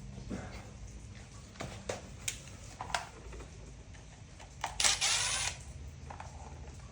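Light clicks and knocks as parts of a Husqvarna self-propelled mower's handle controls are taken apart to free the drive cable, with a brief louder rasp about five seconds in.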